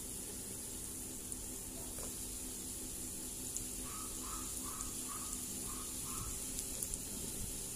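Beetroot sticks frying in hot oil in a pan: a steady sizzle. About four seconds in, a quick run of six short high chirps.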